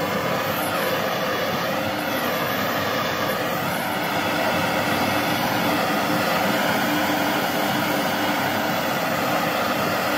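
Wigam Spitfire hand torch burning MAPP-type gas with a steady, even roaring hiss from its blue flame.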